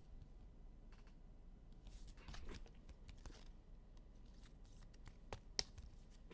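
Faint rustling and light clicks of trading cards and their pack wrappers being handled, with two sharper clicks close together near the end.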